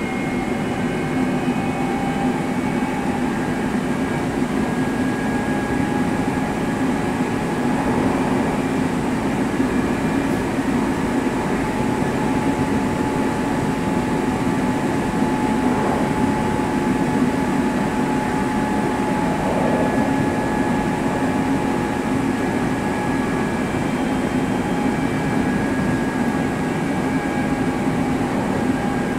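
Hankyu 7000 series electric train car running at speed, heard from inside the car above a bogie: steady rumbling wheel and track noise with a steady motor whine over it.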